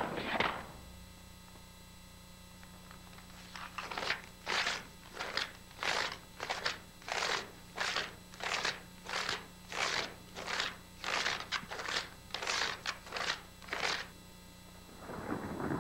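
Tap shoes striking a wooden floor in a steady rhythm, about two taps a second, starting after a pause of a few seconds. A longer, softer sound follows near the end.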